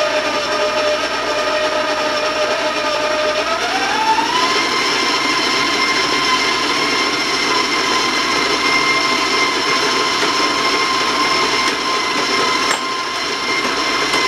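Electric stand mixer running, its paddle beating flour into a crumbly butter-and-sugar cookie dough. The motor's steady whine steps up in pitch about four seconds in as the speed is raised, then holds.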